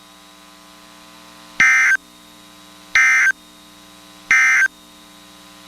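Emergency Alert System end-of-message data bursts: three short, identical warbling digital tone bursts about a second apart, marking the close of a weather warning broadcast. A faint steady hum from the receiver lies underneath.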